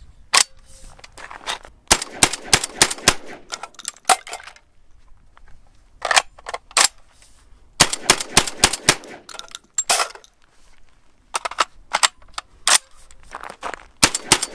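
Typhoon Defense F12, a gas-operated semi-automatic 12-gauge AR-pattern shotgun, firing in rapid strings of shots with short pauses between the strings.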